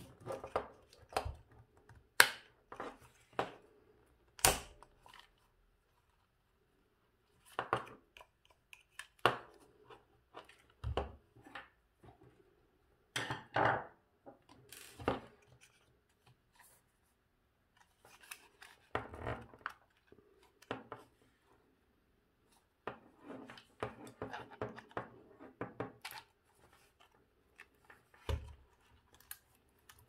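Irregular clicks, knocks and scraping of a hair dryer's plastic fan and housing being handled and fitted together by hand.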